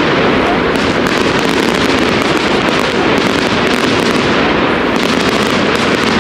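Fireworks crackling and banging in a loud, dense, unbroken barrage of rapid cracks.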